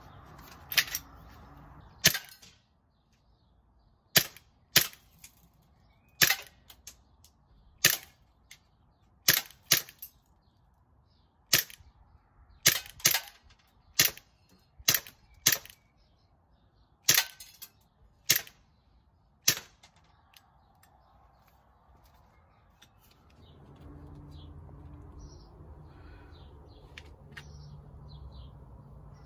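Umarex Glock 17 Gen 4 CO2 air pistol firing about sixteen sharp pops at uneven spacing, roughly one to two seconds apart. The shooting stops about twenty seconds in, leaving a low steady hum with faint high chirps.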